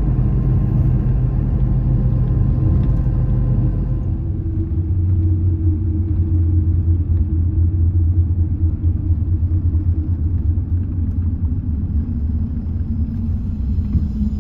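Replacement bus running along a road, heard from inside the cabin: a steady low engine and road rumble. About four seconds in, the engine note drops lower.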